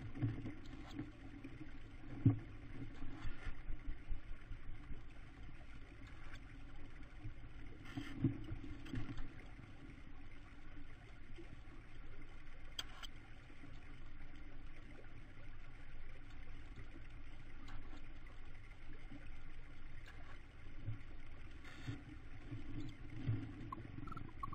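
Steady low rumble from inside a tawny owl nest box, with scattered soft knocks and scuffs as the adult owl and her downy chicks shift about on the wood shavings.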